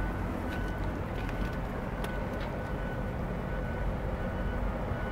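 Steady low rumble of vehicle noise, with a faint high whine that comes and goes and a few light clicks.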